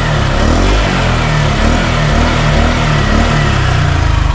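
A Honda Click scooter's single-cylinder four-stroke engine is revved through a Sun Racing Silent Killer aftermarket exhaust pipe. The revs rise and fall, then drop back toward idle near the end. To the owner's ear it sounds close to the stock exhaust and not very loud.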